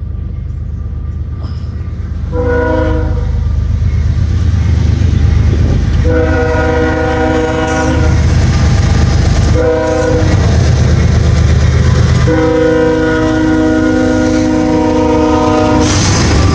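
CSX freight locomotive's multi-chime air horn sounding four mournful blasts, the third short and the last the longest, in the pattern of a road-crossing warning. Under it runs the deep rumble of the slow-moving train, growing louder about two seconds in.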